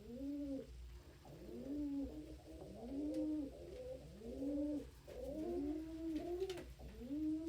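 Domestic pigeons cooing: a steady run of low, rising-and-falling coos about one a second, with two calls overlapping at times.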